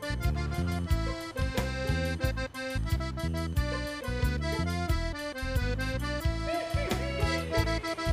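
Instrumental music with a rhythmic bass line under a melody of sustained notes.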